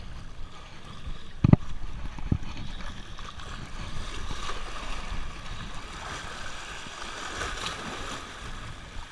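Small waves washing and splashing against the stone jetty blocks, with two short low thumps about a second and a half and two seconds in.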